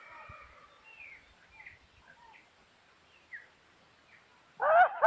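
Scattered faint bird chirps over a quiet background. Near the end, a loud run of quick rising-and-falling calls begins, about six a second.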